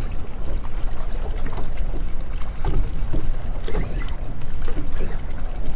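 Wind rumbling on the microphone and water lapping against a small boat's hull, with a few short knocks about halfway through.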